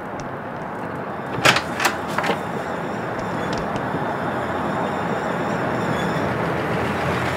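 An old saloon car approaching, its engine and road noise growing steadily louder. A few sharp clicks sound about a second and a half in.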